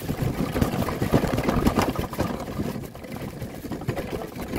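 Pull-wagon rolling over rocks, heard from inside its bed: a continuous jolting rumble and rattle of irregular knocks, easing for about a second partway through.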